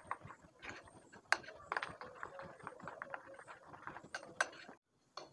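Spoon stirring thick batter in a glass bowl: faint, irregular clicks and scrapes of the spoon against the glass, with a few sharper knocks. The stirring stops shortly before the end.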